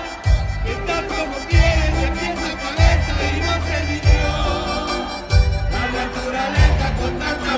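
Norteño band playing live with accordion, guitars and drums, a heavy bass-and-kick hit landing about every second and a quarter.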